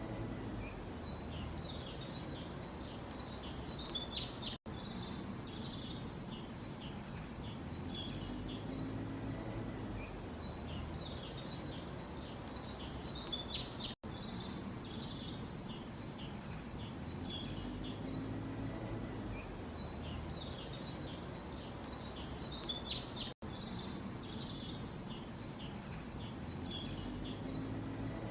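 A chorus of small birds chirping and twittering over a steady background hiss. The sound drops out for an instant three times, about every nine seconds, and the same chirps come back each time, as in a short recording played on a loop.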